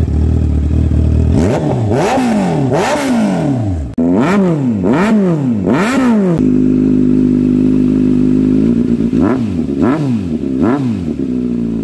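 Sport motorcycles with aftermarket exhausts being revved in a run of short clips: each engine idles, then is blipped again and again, the revs shooting up and falling back about once a second. A steady idle holds for a couple of seconds in the middle before more blips.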